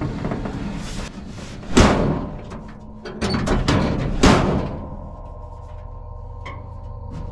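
A car's steel hood being lowered and brought down, with clattering and two heavy thumps as it comes down over the carburetor's air cleaner. Background music comes in about five seconds in.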